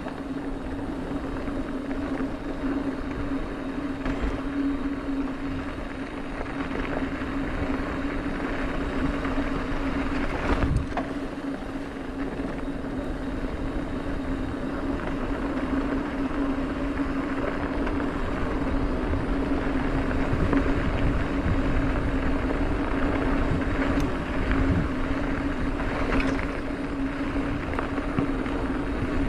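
A mountain bike rolling fast down a hard-packed dirt road: a steady humming drone under a rush of wind, with a sharp knock from a bump about ten seconds in and a few lighter ones later.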